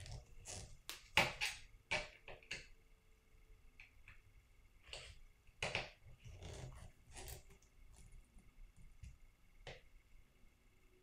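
Scattered clicks and taps of small plastic RC-truck parts and hardware being handled and fitted, with the sharpest click about a second in.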